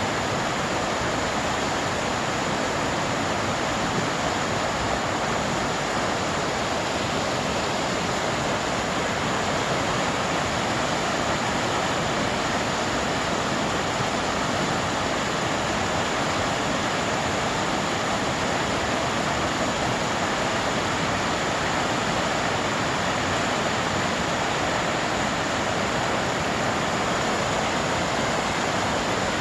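Steady rushing of flowing water, a stream or small waterfall, an even hiss with no breaks or separate events.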